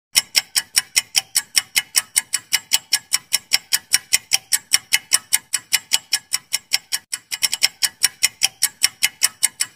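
Clock-ticking sound effect for a quiz countdown timer: fast, even ticks about five a second, briefly quicker and uneven around seven seconds in.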